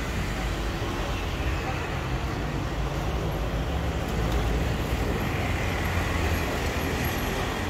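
City street traffic: a steady rumble of passing vehicles, slightly louder about halfway through.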